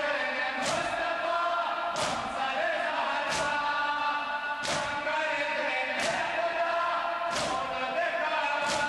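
A crowd of men beating their chests in unison in Shia matam, with a sharp collective slap about every second and a half. Between the slaps many male voices chant a mourning lament (noha).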